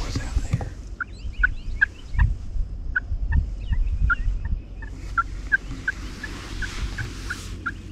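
Turkey yelping: a long, even series of short call notes, about three a second, starting about a second in, with low thumps of wind or handling on the microphone underneath.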